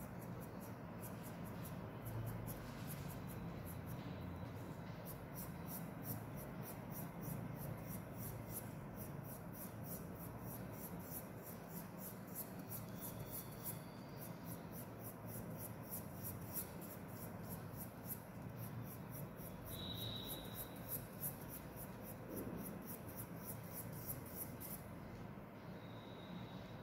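Pink marker pen scratching on paper in quick, short, repeated strokes, several a second, as it colours in; the strokes stop near the end.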